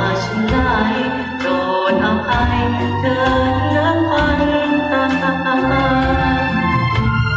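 A man singing into a microphone through a PA over backing music with sustained keyboard chords and bass.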